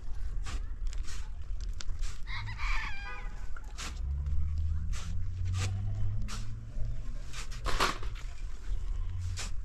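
Shovels scraping and striking into a sand pile again and again. A rooster crows once about two and a half seconds in. A low steady hum sits under it in the second half.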